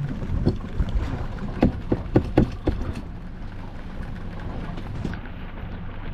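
Fishing boat's motor running steadily under a low rumble of wind on the microphone. A quick run of sharp knocks and thumps, as of things hitting the boat's hull or deck, comes in the first three seconds.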